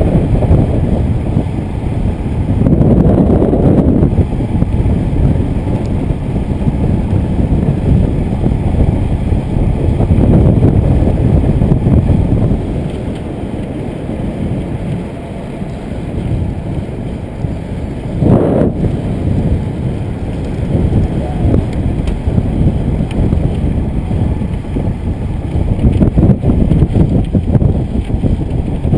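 Loud wind rush buffeting the microphone of an action camera on a moving road bike, swelling and fading as the rider's speed and the air change.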